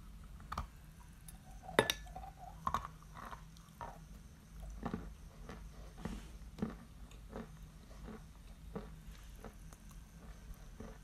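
A mouthful of Barsuk chalk being bitten and chewed, with dry crunching. A sharp bite crack about two seconds in is the loudest, then steady smaller crunches about twice a second.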